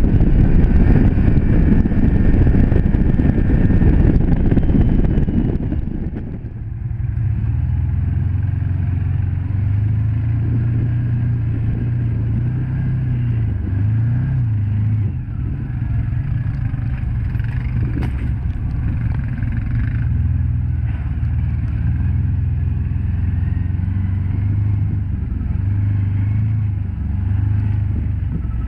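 Can-Am Commander 1000 side-by-side's V-twin engine driving at speed on a gravel road, with wind and gravel noise loud over it. After about six seconds the wind noise drops away and the engine runs steadily at low trail speed, its pitch rising and falling a little with the throttle.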